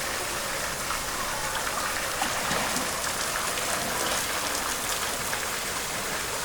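Steady rain falling and pattering on hard surfaces, with no break.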